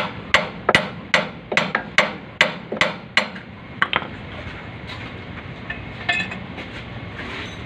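A slide hammer on a puller bolted to a truck's rear wheel hub, struck about ten times at a steady two to three blows a second, each a sharp ringing metal knock, followed by a few lighter clinks near the end. The hub is being pulled off to replace a leaking hub seal.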